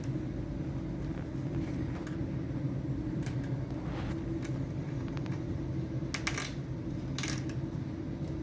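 Steady low hum of the room, with a few short crackles and clicks from thin plastic diffuser sheets and tape being handled, mostly in the second half.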